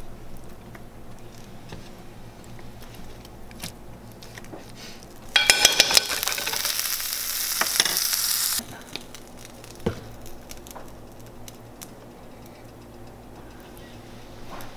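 Hot oil sizzling in a frying pan for about three seconds, starting with a cluster of pops and cutting off suddenly. Around it are faint soft clicks of hands and a spoon working at the fish on a cutting board.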